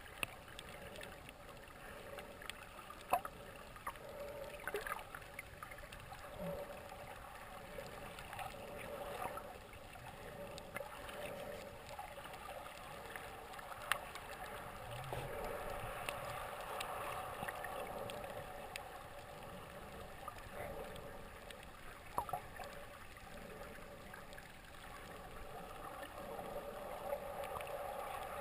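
Muffled underwater ambience picked up by a submerged camera: a steady, dull wash of water with scattered faint clicks and taps.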